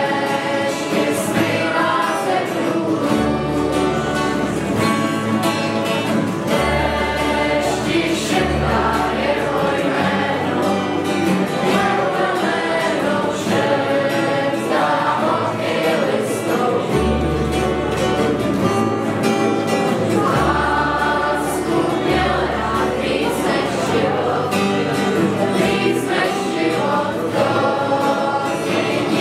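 A large ensemble of acoustic guitars strumming with a double bass, while the group sings together in chorus. The double bass plays low notes held for a second or so each.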